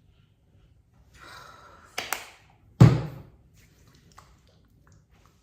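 A brief rustle, then two sharp clicks in quick succession and a single heavy thud about a second later, the thud being the loudest sound.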